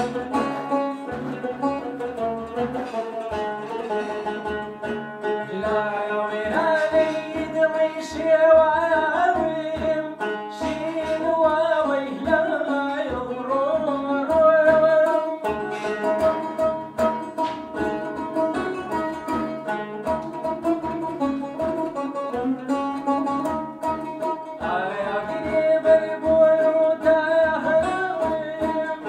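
A man singing a melody while strumming and plucking a long-necked lute with a round, skin-headed banjo-like body, with steady quick plucked strokes under the voice and short instrumental stretches between sung lines.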